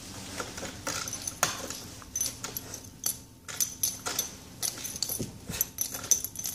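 Door stop rattling and clicking in quick, irregular strokes as a Brittany puppy chews and tugs at it: a racket of sharp metallic clicks with a bright ring.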